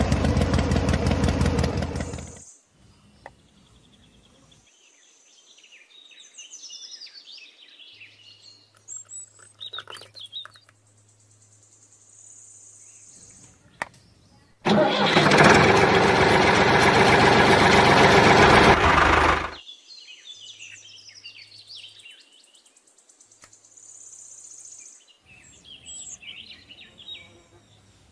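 Small electric motor of a homemade miniature tractor-and-water-pump model running loudly for about two seconds, stopping, then running again for about five seconds in the middle. Birds chirp in the quieter stretches between.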